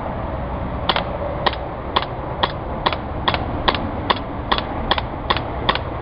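Walther P99 CO2 gas-blowback airsoft pistol fired shot after shot in semi-automatic: about a dozen sharp cracks, two to three a second, starting about a second in.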